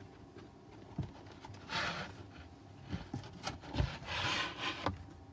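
A board book being shifted and handled on a wooden tabletop: two brief rubbing, sliding swishes with a few soft knocks.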